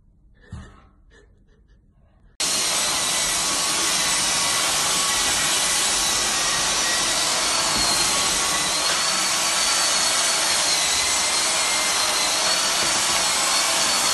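Cordless stick vacuum running steadily, a loud rushing noise with a high whine, as its nozzle is brushed over a dog's coat. It cuts in abruptly about two seconds in, after a fairly quiet stretch.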